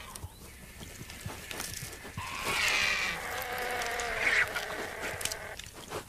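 Vultures and a black-backed jackal squabbling over a carcass. About two seconds in, a drawn-out, wavering squealing call begins and lasts about three seconds.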